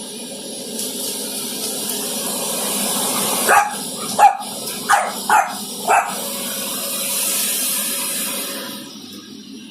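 French bulldog barking five times in quick succession at a running vacuum cleaner, over the vacuum's steady rushing hiss, which drops away near the end.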